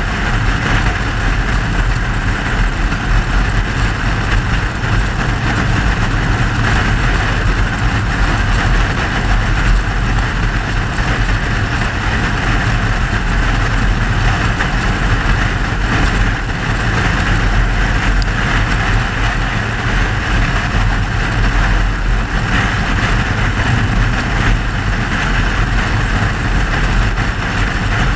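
Mercedes-Benz W126 car running steadily: a low engine hum under an even hiss, with no changes.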